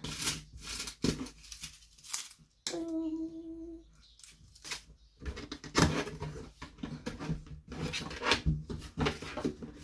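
Scattered clicks, knocks and rustling of packaging and a toaster being handled during an unboxing, with a short hummed note about three seconds in.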